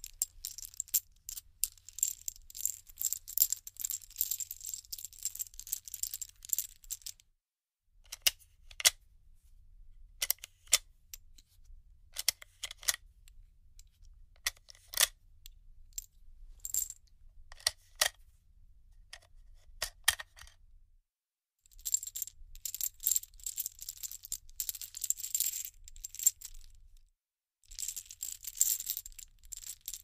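Bullet cartridges being handled, clinking and rattling against each other with a bright metallic ring. Dense clattering runs for the first several seconds, then comes a long stretch of separate single clinks, then more dense clattering, with short pauses between.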